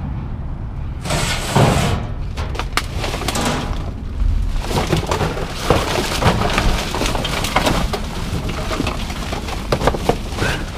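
Plastic trash bags and packaging rustling and crinkling as hands dig through a dumpster: one loud rustle about a second in, then steady crackling from about four seconds on.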